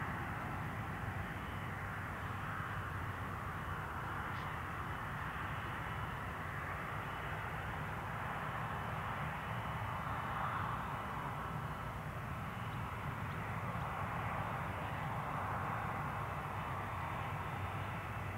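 Airbus A330's Rolls-Royce Trent 700 jet engines running at taxi power as the airliner rolls slowly, a steady rumble and whine that swells and fades gently.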